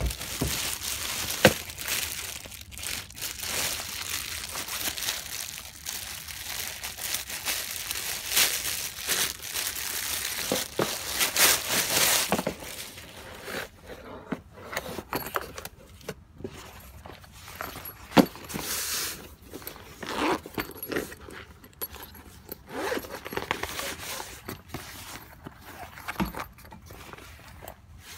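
Clear plastic wrapping crinkling and rustling as it is pulled off a ukulele gig bag, densest for roughly the first twelve seconds. After that come sparser handling noises: scattered clicks, knocks and rubbing of the bag against the cardboard box.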